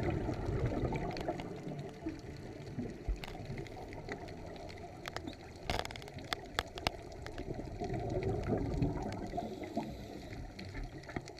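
Underwater water sounds: bubbling and gurgling, with a short run of sharp clicks about halfway through.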